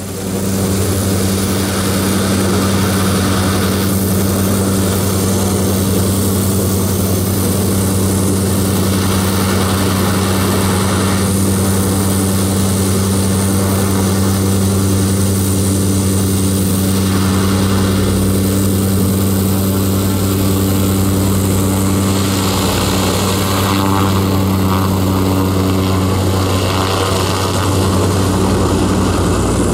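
A Zeppelin NT airship's piston engines and propellers running steadily, a loud low drone that holds one pitch throughout.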